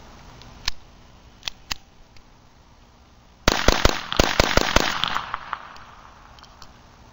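A Beretta 21A .22 LR pistol fired rapidly with CCI Stinger hyper-velocity rounds: about eight sharp shots in just over a second, with a fading echo after. A few small clicks come first.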